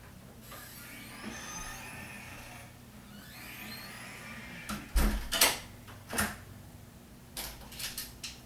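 Things being handled at a kitchen counter: two stretches of rustling, then a string of knocks and clatters, the loudest about five seconds in, and a few lighter clicks near the end.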